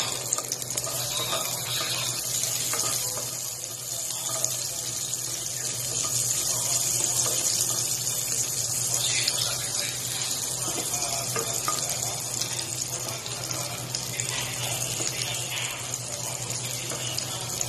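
Sliced garlic sizzling steadily in hot oil in a frying pan, stirred now and then with a wooden spatula. A steady low hum runs underneath.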